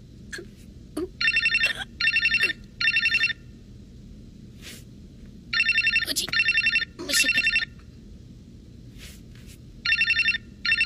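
Telephone ringing: sets of three short, warbling trill-rings, the sets repeating about every four seconds, with a few faint clicks between them.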